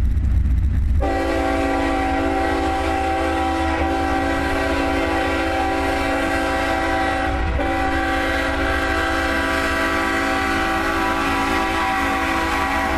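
Diesel locomotive's multi-chime air horn sounding a long chord of several notes from about a second in, with a brief break about halfway, over a low rumble.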